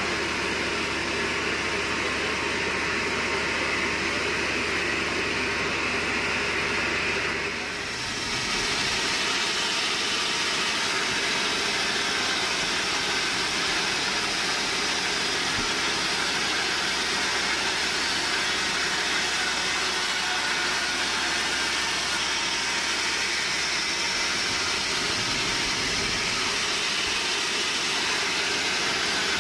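Sawmill bandsaw machinery running with a steady mechanical drone. About eight seconds in the sound changes abruptly to a brighter, hissier noise that stays steady.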